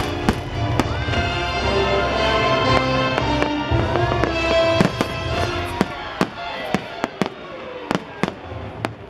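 Fireworks bursting and cracking over pitched show music. In the last few seconds the music thins and a run of sharp, separate bangs stands out.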